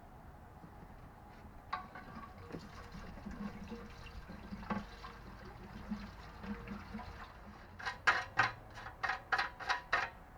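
E10 petrol being poured from a can into a small engine's fuel tank, gurgling unevenly for several seconds. Near the end come a quick run of about eight sharp knocks or clicks.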